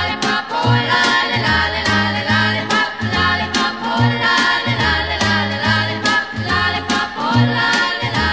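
Upbeat background music with singing over a bouncing, repeating bass line.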